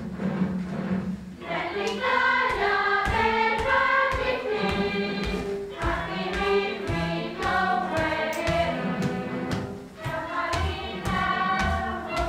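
Recorded march music: a choir singing over a brass band with a steady drum beat.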